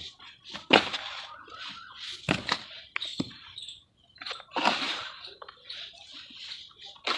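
Sand-and-cement shapes crumbling and breaking apart: several sharp cracks with gritty, crackly crumbling between them.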